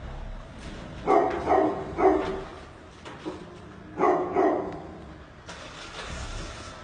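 A dog barking in short bursts: a quick run of barks about a second in and another couple about four seconds in.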